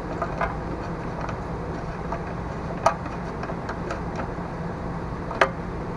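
Small metallic clicks and taps of a bolt being started by hand on a mower engine, with two sharper clicks about three and five and a half seconds in, over a steady low background hum.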